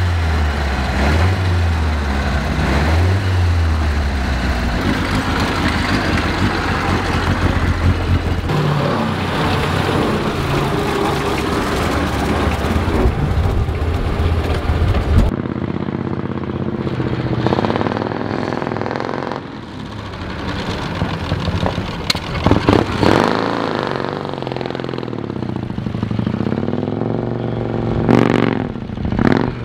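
Vintage cars' engines running as they drive through a driving test: first an open tourer's engine, then, after a cut, a Morgan three-wheeler's engine revving up and down again and again as it manoeuvres and pulls away.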